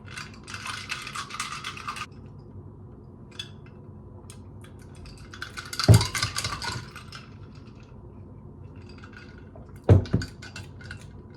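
A coffee mug and cutlery handled on a kitchen counter: a stretch of clinking and rattling near the start, then two dull knocks about four seconds apart, the first the loudest.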